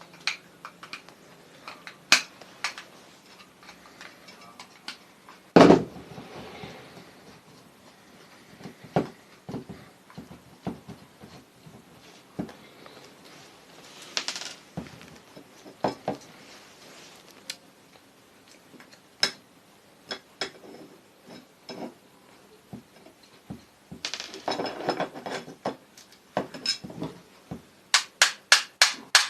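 Metal tools and small metal parts of an electric sewing machine motor clinking and knocking as the motor is taken apart, with one loud knock about a quarter of the way in and a quick run of sharp taps near the end.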